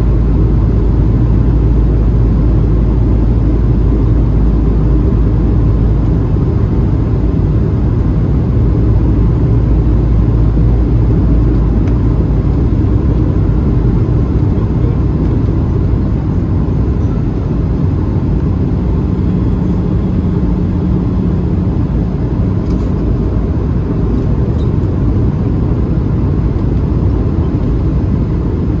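Steady cabin noise inside a Boeing 737-700: engine and airflow rumble heard from a window seat. The deepest rumble drops away about six seconds in and again about twelve seconds in, and a steady low tone comes in briefly around twenty seconds.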